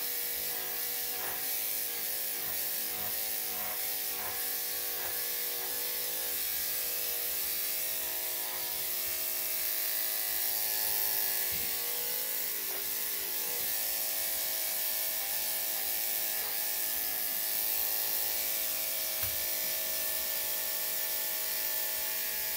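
Electric dog grooming clippers running with a steady buzzing hum as they shave off a heavily matted coat, with a few faint ticks in the first few seconds.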